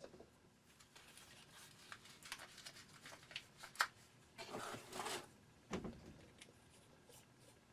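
Small handling noises of a string of Christmas lights being worked on: scattered light clicks and rustles, a sharp click a little under four seconds in, a longer rustle just after, and a low thump near six seconds in.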